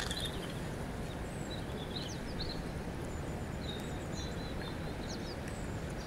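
River water flowing with a steady rush, while small birds chirp now and then over it in short calls.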